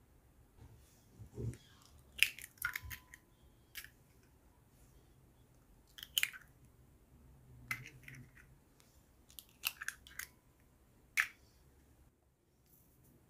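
Eggs tapped on the rim of a ceramic bowl and cracked open one after another: short clusters of sharp taps and eggshell crunching, with a couple of the taps leaving a brief ringing note from the bowl.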